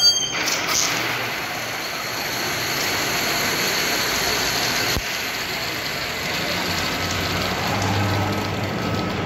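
Galton board: many small metal balls clattering down through rows of pins into the wooden bins under a clear cover, a dense steady rattle that starts about half a second in.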